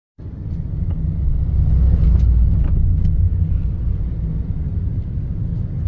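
Low rumble of road traffic, a vehicle passing close by, swelling about two seconds in and easing off.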